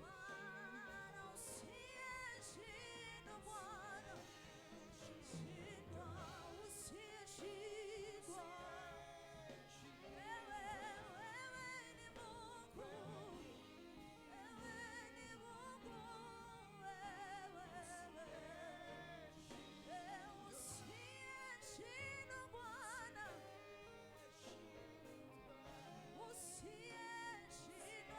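Gospel worship song, fairly quiet: a voice singing with vibrato over instrumental accompaniment.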